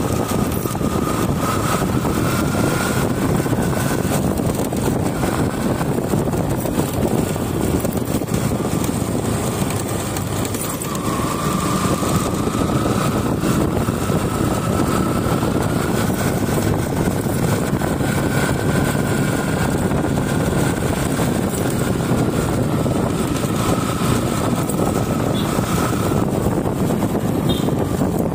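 Motorcycle engine running while riding, with wind and road noise on the microphone. A thin high whine drifts up and down in pitch as the speed changes, with a brief drop in loudness about ten seconds in.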